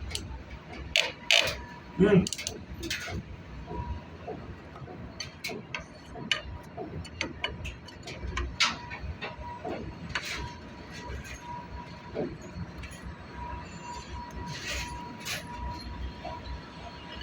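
Scattered clicks and knocks of hands and tools working on plumbing fittings, loudest in a cluster near the start. A faint steady high tone comes and goes in the second half.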